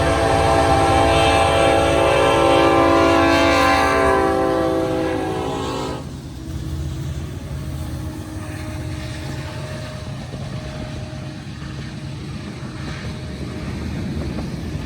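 Diesel freight locomotive's air horn blowing one long chord that cuts off sharply about six seconds in, over the low rumble of the train rolling past, which carries on after the horn stops.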